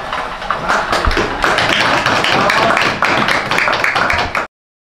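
A small group of people clapping in quick, uneven claps, with a dull thud about a second in; the clapping cuts off abruptly near the end.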